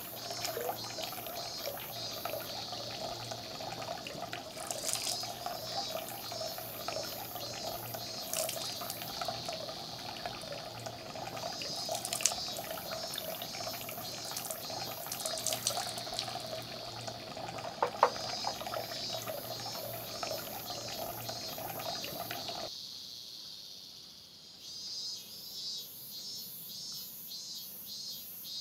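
Water trickling steadily from the bamboo spout of a shrine purification basin, with two sharp knocks along the way. The water sound cuts off near the end. High-pitched insect chirping pulses evenly throughout.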